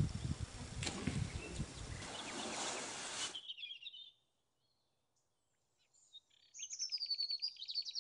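A rushing noise with a rumbling low end for the first three seconds or so, which cuts off suddenly. Then outdoor ambience with songbirds: a short chirp, a pause, and near the end a bird song ending in a fast, even trill.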